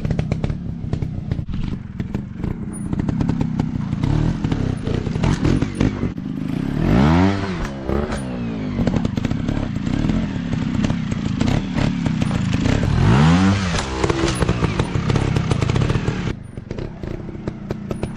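Trail motorcycle engine running, its pitch rising and falling twice, about seven and about thirteen seconds in, with frequent clattering knocks throughout.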